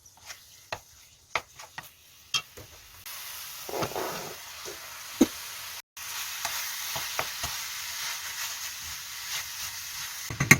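Light clinks of utensils, then about three seconds in, food starts sizzling in a hot frying pan while it is stirred, with a spatula tapping and scraping against the pan. The sizzling breaks off for a moment near six seconds, then carries on, with a sharp knock near the end.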